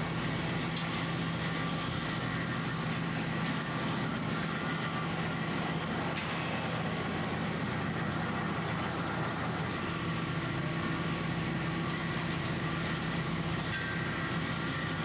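Steady mechanical drone of heavy construction machinery: a constant low hum with a thin higher whine above it.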